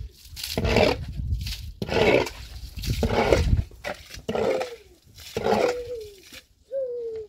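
Muddy rainwater scooped up from a puddle with a small metal pot and flung aside, splashing about once a second. From about four seconds in, a held call at a steady pitch that falls slightly at the end comes three times, its source unseen.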